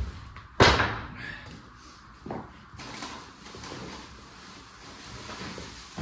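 A loud bang about half a second in, then a lighter knock about two seconds in.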